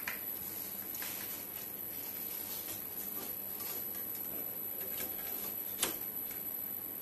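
Light scattered clicks and taps of a metal fiber network module being handled and slid into the network module slot of a Cisco 9200 switch, with one sharper click near the end as the module is pushed home.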